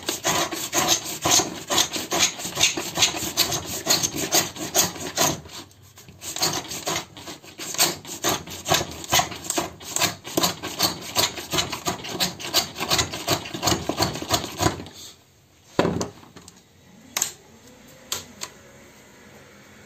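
Wooden marking gauge's sharp pins scraped rapidly back and forth along a thin sheet, scoring it through to cut off strips: fast scratchy strokes, several a second, with a short pause about six seconds in, stopping about fifteen seconds in. Then a single knock and two lighter taps.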